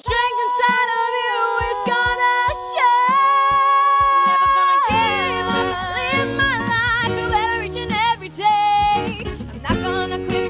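Pop song with a female singer holding long sung notes over sparse backing. About five seconds in, a fuller accompaniment with lower instruments comes in beneath the voice.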